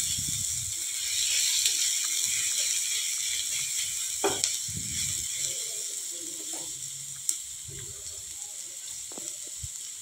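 Sliced onions sizzling gently in mustard oil in a non-stick frying pan over a low flame, softening rather than frying. A silicone spatula stirs them, with a few short scrapes and taps against the pan, and the sizzle fades slowly.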